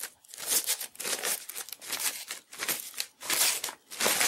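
Thin plastic wrapping crinkling and rustling as it is pulled off a projector, in a run of irregular surges that swell loudest near the end.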